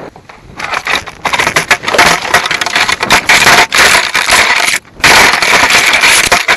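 Loud crackling and scraping of twigs, branches and dry leaves against the foam fuselage of a Phoenix 1600 RC glider and its onboard camera as the crashed plane falls through a tree into leaf litter, with a brief break a little past the middle.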